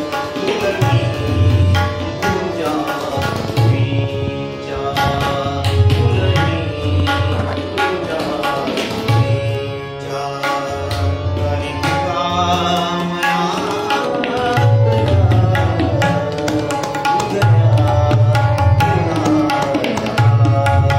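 Tabla pair playing a continuous rhythm, sharp strokes on the small right-hand drum over deep, swelling strokes on the bass drum (bayan) every second or two, with a harmonium sounding sustained chords and melody.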